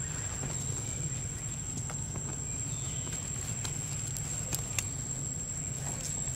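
Forest-floor ambience: a steady high-pitched whine over a low hum, with a few faint clicks and rustles of dry leaves as the monkeys shift about, two of them close together about four and a half seconds in.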